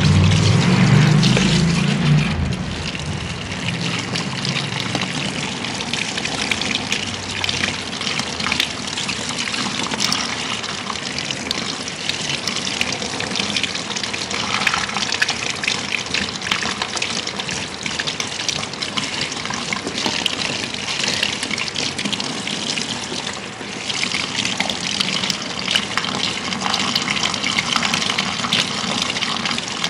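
Water from a handheld shower sprayer rinsing shampoo out of hair over a salon shampoo basin: a steady hiss of spray and splashing. It comes on suddenly, with a fuller gush in the first two seconds.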